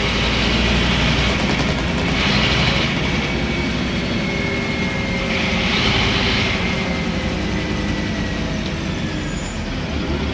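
Scania N230UB single-decker bus heard from inside the passenger cabin while under way: a steady diesel engine drone under road and body noise. There are two brief rushes of higher noise and a faint whine that slowly falls in pitch.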